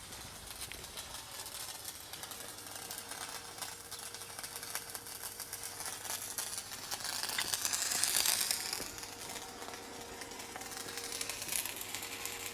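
Electric arc welding on a steel skid steer bucket edge: a dense, rapid crackle over a steady hum, swelling louder about eight seconds in.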